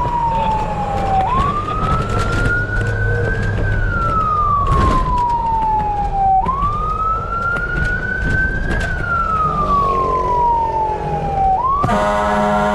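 Fire truck siren on a slow wail, rising and falling about every five seconds, over steady engine and road rumble. Near the end a horn starts blaring.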